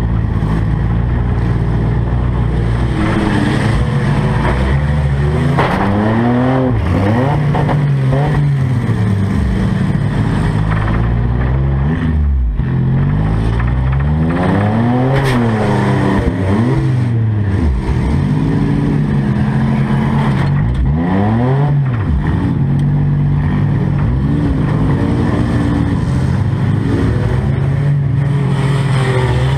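Demolition derby car's engine, heard from inside its stripped cabin, revving up and dropping back again and again as the car is driven hard around the arena.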